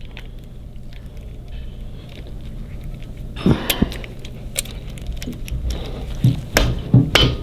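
Several light metallic clicks and clinks, starting about halfway through and bunching near the end, as cam drive sprockets are handled and fitted onto their keyed shafts in a Harley-Davidson Twin Cam 88's cam chest. A low steady hum runs underneath.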